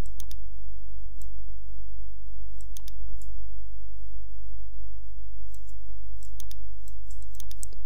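Computer mouse clicking now and then, a few separate clicks with a quick run of them near the end, over a steady low hum.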